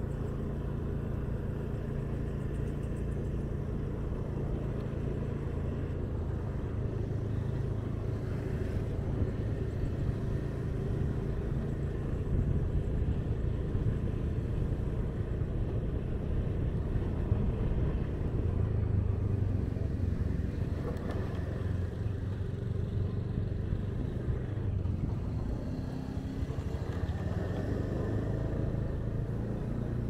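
Ride through city traffic: a steady low engine and road rumble that swells somewhat in the middle and then eases.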